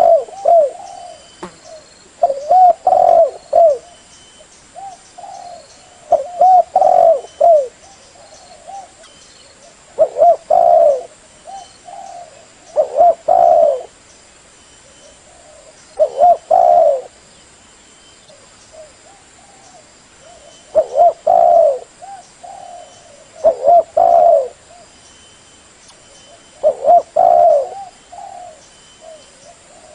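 Spotted dove cooing, a decoy bird's lure call for drawing wild doves: short phrases of several low coos, repeated about every three to four seconds.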